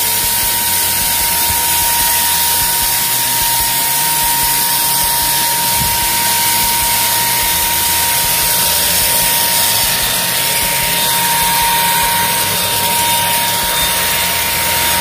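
Xiaomi Dreame XR cordless stick vacuum running steadily on its number 2 power setting while sucking up scattered uncooked rice: a loud, even rush of air with a steady whine from the motor.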